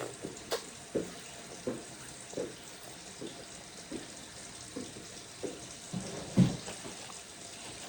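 Close-up chewing: wet mouth sounds with soft clicks repeating roughly every half second to second, one louder thump near the end.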